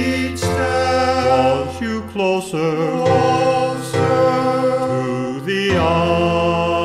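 A cappella close harmony from one man's voice multitracked into several parts, singing long held chords that change about three seconds in and again near the end.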